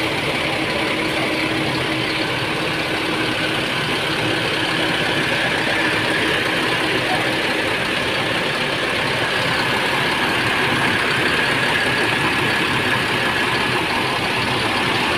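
Mercedes-Benz OH 1626 bus's rear-mounted six-cylinder diesel engine idling steadily.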